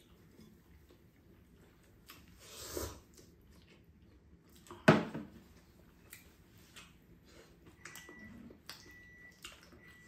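Table eating sounds: quiet chewing and light clicks of metal chopsticks on dishes, with one sharp clack about five seconds in as chopsticks strike the pan. A faint high beep repeats several times near the end.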